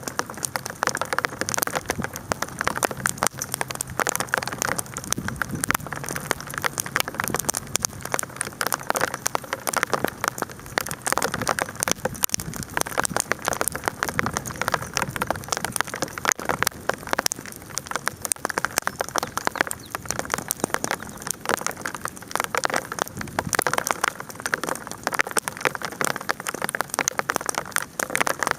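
Hail falling steadily, a dense, even patter of small hits, mixed with the crackle of a burning campfire. A faint low hum sits under it for roughly the first ten seconds.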